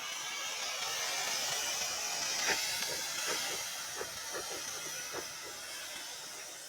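Something burning with a strong steady hiss and scattered crackling pops. The hiss swells over the first second and slowly dies away.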